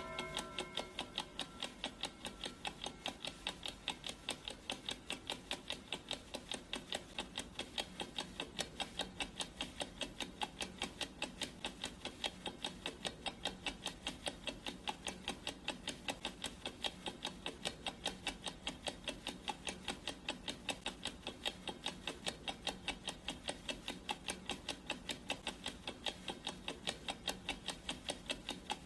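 Clock ticking sound effect: an even, fast tick that keeps on without a break. The last of a ringing, bell-like tone fades out within the first second.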